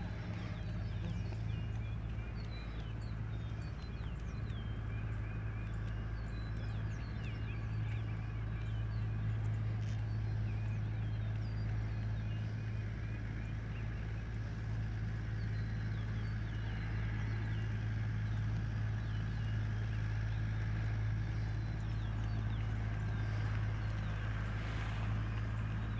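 A steady low hum with many faint, short high chirps scattered over it.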